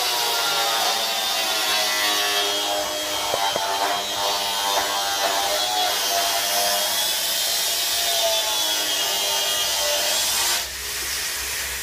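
Angle grinder working on the steel chassis frame: a steady hissing grind with a whine that wavers slightly in pitch as it bears on the metal, stopping suddenly near the end.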